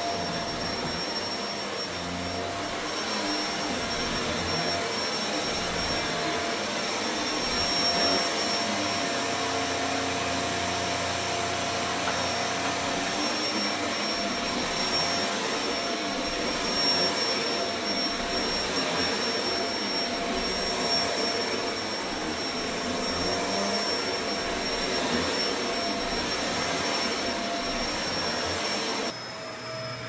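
Upright vacuum cleaner running steadily on a rug, its motor giving a constant rush with a high whine over it. About a second before the end the sound drops suddenly to a quieter vacuum running.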